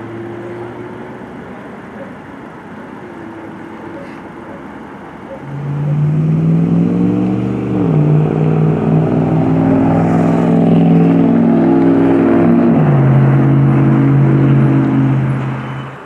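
A motor vehicle's engine close by, loud from about five seconds in. Its pitch climbs, then steps down twice while it stays loud, and it fades away near the end. Before it there is a quieter steady engine hum.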